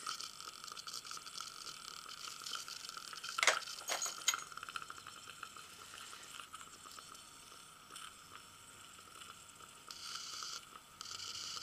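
Dental saliva ejector sucking and gurgling in the patient's mouth, a steady hiss, with two sharp clicks of metal hand instruments against the teeth about three and a half and four seconds in.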